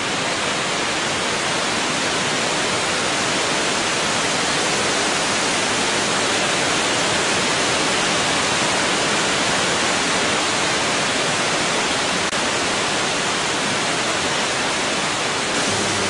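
Waterfall pouring into a pool: a steady, even rush of falling water.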